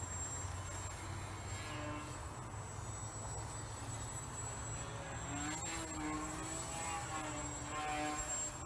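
Electric motor and propeller of a small foam-board delta-wing RC plane in flight, its pitch rising and falling as the throttle changes, over a low rumble of wind.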